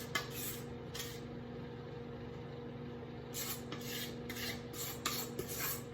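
Spatula scraping cake batter from the sides of a mixing bowl in short strokes: a couple near the start, a pause, then a run of strokes from about halfway. A faint steady hum lies underneath.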